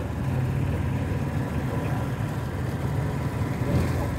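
John Deere Gator utility vehicle's engine running steadily with a low hum as it drives along at an even speed.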